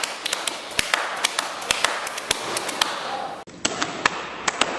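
Horse-running sound effect: a fast series of sharp hoof clops in an uneven galloping rhythm. It breaks off briefly about three and a half seconds in, then resumes sounding duller.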